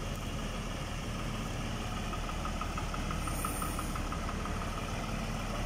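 Engine of a truck-mounted crane idling with a steady low rumble. A faint rapid ticking comes in around the middle.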